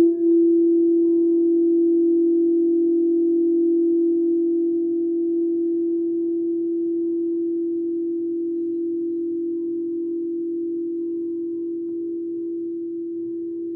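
A singing bowl ringing out on one steady, pure tone that slowly fades.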